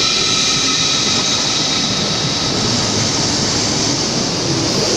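Train running through the station: a loud, steady rushing noise with several steady high-pitched whining tones.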